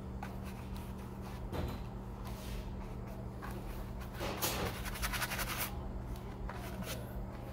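Stiff hog-hair brush dragging oil paint across a stretched canvas: a few short strokes, then one longer, scratchy stroke about four and a half seconds in, over a steady low hum.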